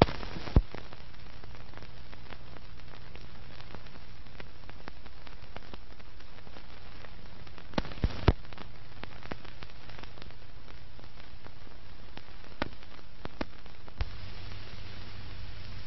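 Surface noise of an old optical film soundtrack: a steady hiss with a low hum, broken by scattered clicks and pops, three of them close together about eight seconds in.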